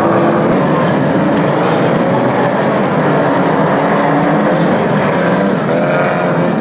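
A pack of 2-litre banger race cars' engines revving hard together, the pitches of several engines rising and falling as the cars accelerate and jostle in close contact.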